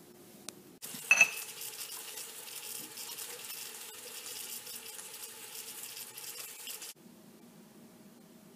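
Prestige Deluxe pressure cooker letting off steam: a sudden loud burst with a brief whistle about a second in, then a steady hiss that cuts off suddenly about six seconds later.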